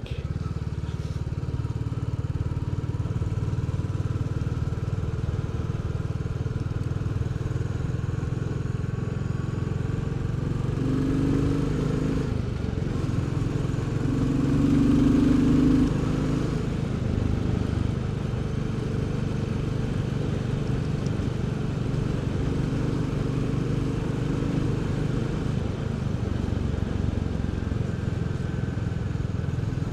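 Royal Enfield Bullet 350's single-cylinder engine and exhaust running steadily while riding along, a little louder for a couple of seconds about halfway through.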